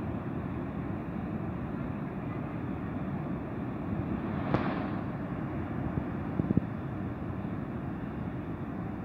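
Steady low roar of Niagara Falls' water pouring over the falls, even and unbroken. A sharp click cuts in about halfway through, followed a second or two later by a few soft knocks.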